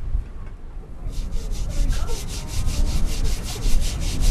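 A metal cooking pot scrubbed by hand, a fast, even scraping of about six strokes a second that starts about a second in.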